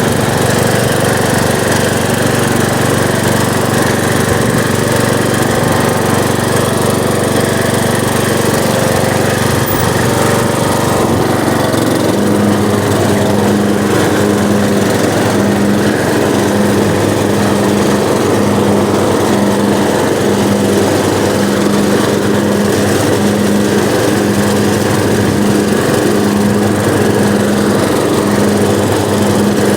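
Small riding lawn mower's engine running steadily after firing up on stale gas from sitting all winter. About twelve seconds in its note changes and takes on an even pulse, about once a second.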